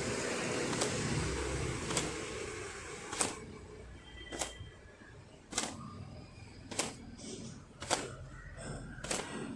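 Long wet hair being whipped to shake out the water: sharp slaps about once every second and a bit, evenly spaced, with a rushing noise that dies away about three seconds in.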